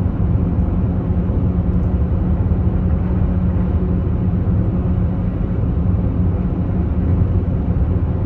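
Steady low road and engine rumble of a car driving through a road tunnel, heard from inside the cabin, with a constant low hum.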